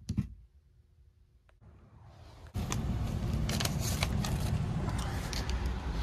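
A brief tap near the start. Then, from about two and a half seconds in, loud rubbing and scraping handling noise with scattered clicks over a steady low rumble, from a hand right against the recording phone.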